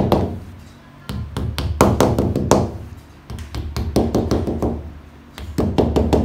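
Rubber mallet tapping fischer S6 plastic wall plugs into drilled holes in a wall: quick bursts of sharp knocks, one burst per plug, with short pauses between.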